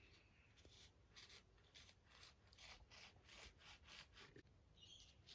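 Faint, rhythmic scraping of a knife sawing through mandarin peel, about three strokes a second.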